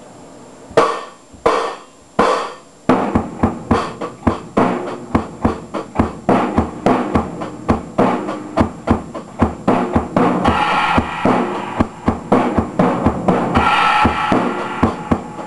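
Drum kit played with sticks: three separate hits, then from about three seconds in a steady beat of kick and snare. From about ten seconds in a brighter ringing comes in over the beat.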